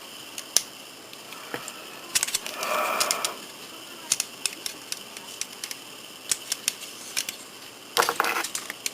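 Small plastic model-kit parts clicking and rattling as they are pressed together and handled: scattered sharp clicks, a quick run of clicks with a brief scrape about two to three seconds in, and another burst of clicks near the end.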